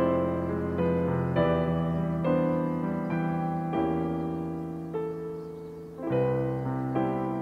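Background piano music: single notes and chords struck one after another, each fading before the next. It grows softer until a new chord is struck about six seconds in.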